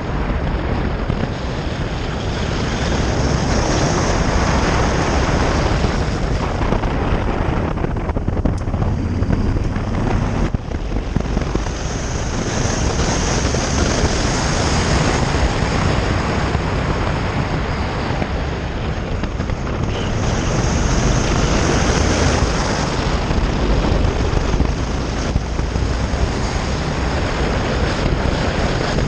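Onboard riding noise from a Honda Varadero motorcycle on a gravel road: steady wind rush over the microphone mixed with tyre and engine noise, swelling and easing a few times.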